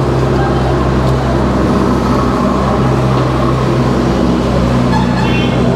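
Steady low engine hum of motor vehicles with traffic noise, running without a break.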